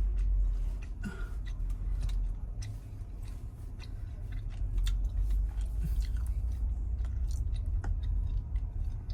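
Low rumble inside a car's cabin as the car creeps slowly out of a narrow driveway, with scattered small clicks and crackles throughout.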